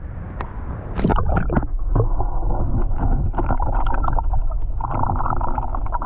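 Action camera plunged into the sea: a splash about a second in, then the muffled rush of water heard from under the surface, with many small clicks and pops.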